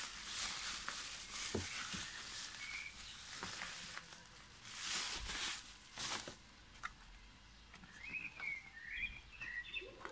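Plastic bubble wrap rustling and crinkling in bursts as a boxed radio is pulled out of it, for about the first six seconds. Near the end a small bird chirps several times.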